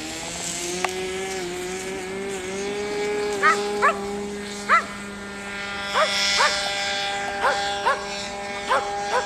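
Small electric motor of an RC plane whining steadily, its pitch rising briefly at the start as it spins up. From about three and a half seconds in, short high yelps sound, often in pairs, roughly once a second.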